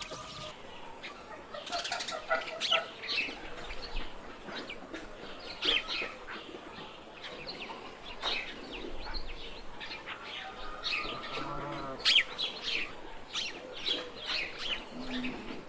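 Small birds chirping in quick, scattered calls over a grazing flock of sheep, with one drawn-out sheep bleat a little past the middle.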